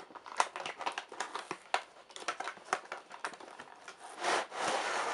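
Cardboard box of a toy train set being opened by hand: a run of sharp crackles and clicks as the end flap is worked open, then a longer, denser scraping rustle about four seconds in as the packing is pulled.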